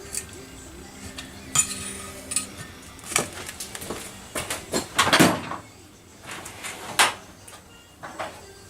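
A metal tool scraping and clicking against an outboard's lower unit housing as a sealed-in water intake screen is pried up by its edges, the sealer breaking loose. Scattered clicks and scrapes, loudest a little past the middle and once more near the end.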